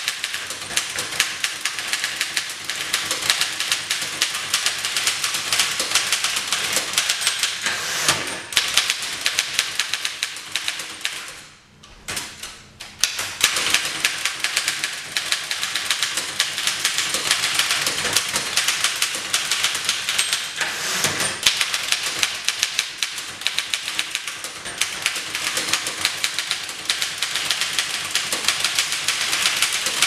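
Fast typing on a 1922 Remington No. 11 manual typewriter: a rapid, continuous clatter of typebars striking the platen, with a brief pause about twelve seconds in.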